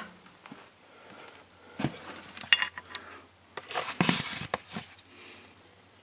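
A few short metal clinks and knocks with handling noise as a steel bar is picked up and fitted into the tractor engine's crankshaft pulley nut.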